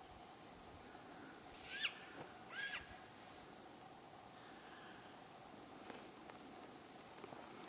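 Young great gray owl giving two short, high, harsh calls about a second apart, a couple of seconds in.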